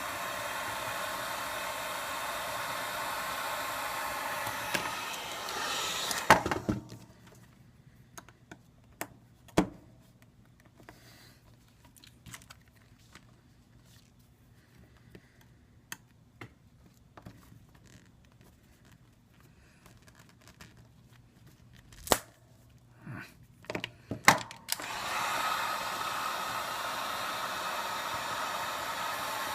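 Heat gun blowing hot air steadily to soften the adhesive under the iPad 2's glass, cutting off about six seconds in. A long quieter stretch of small clicks and taps follows, with a few sharp knocks, before the heat gun starts blowing again near the end.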